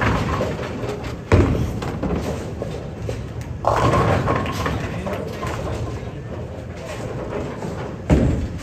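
Bowling balls and pins crashing in a bowling alley: three sudden heavy hits, about a second, four and eight seconds in, each ringing on in the large hall.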